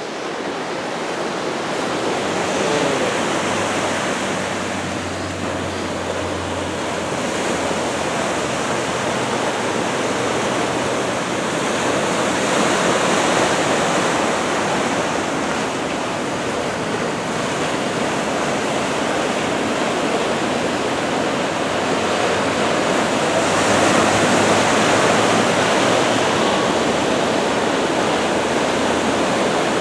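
Ocean surf breaking on the shore, a steady rush of water that swells louder about every ten seconds as waves come in.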